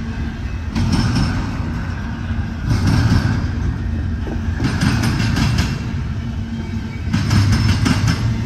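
Double-stack intermodal freight train of loaded well cars rolling past at close range: a steady low rumble of wheels on rail, with bursts of higher metallic wheel clatter about every two seconds.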